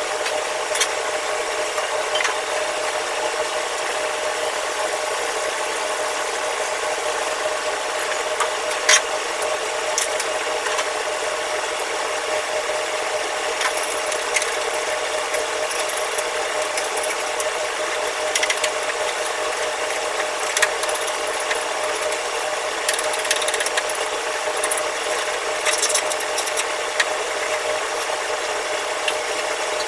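Scrubbing and scraping on a stainless-steel wok range, with scattered clicks and metal clinks, thickest in the second half. It sits over a steady machine drone with a constant hum, typical of kitchen ventilation.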